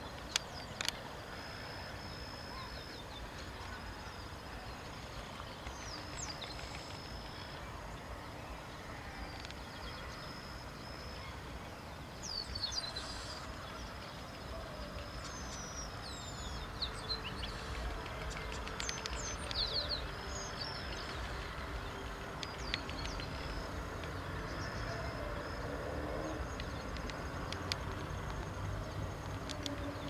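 Outdoor ambience: a steady low rumble with scattered short high chirps and whistles of small birds, and a thin high steady tone that comes and goes. Two sharp clicks about a second in.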